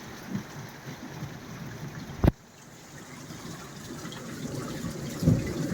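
Heavy rain with water gushing and trickling from a drainpipe into a garden pond. About two seconds in there is a sharp click, and the sound drops abruptly, then slowly builds again. A low rumble of thunder starts near the end.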